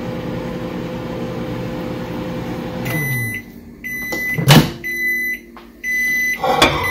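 Microwave oven running with a steady hum that stops about three seconds in as its timer runs out, the hum winding down. Then come end-of-cycle beeps about once a second, and a loud clack as the door is pulled open.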